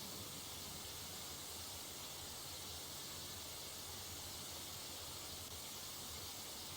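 Faint steady hiss with a low hum underneath: background noise with no distinct event.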